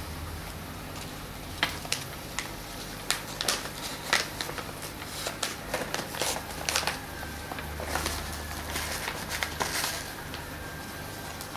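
A Tetra Pro Vegetable fish-food pouch crinkling as it is handled, a run of sharp crackles from about a second and a half in until near the end, over a steady low hum.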